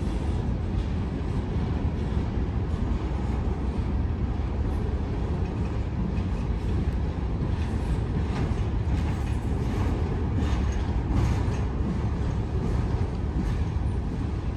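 Freight cars of a long CSX freight train rolling past: a steady rumble of steel wheels on rail, with faint scattered clicks.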